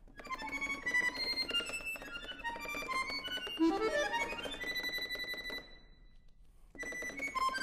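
Solo accordion playing a fast, dense passage of short notes, with a rising run about halfway that ends on a held high note. The music breaks off for about a second, then starts again near the end.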